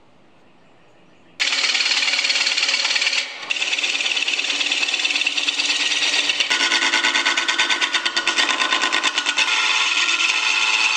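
Hand turning tool cutting a spinning glued-up laminated wood blank on a lathe: a loud scraping, chattering cut with a fast even rhythm that starts abruptly about a second and a half in and breaks off briefly about two seconds later.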